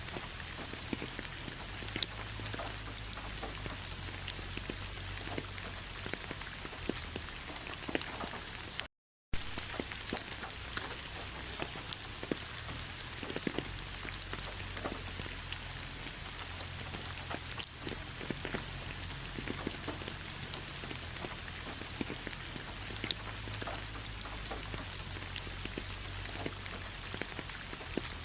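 Steady autumn rain pattering on fallen leaves, a constant hiss dotted with irregular individual drop taps. The sound cuts out completely for a split second about nine seconds in.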